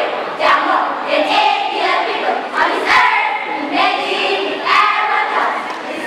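A chorus of girls' voices reciting together in unison in a choral-speaking performance, rhythmic and declamatory, with a few sharp hits about half a second, three seconds and nearly five seconds in.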